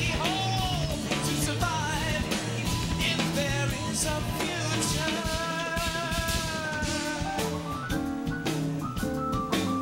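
Live progressive rock band playing: a lead vocalist sings over drum kit, electric bass and guitar. About halfway through, one sung note is held for about two seconds.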